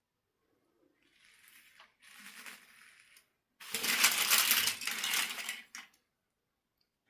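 Small hard pieces clattering and jingling, faint at first, then a louder, denser rattle for about two seconds past the middle.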